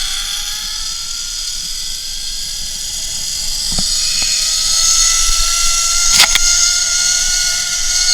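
A motor running, its whine rising slowly and steadily in pitch, over a strong steady high hiss, with a sharp click about six seconds in.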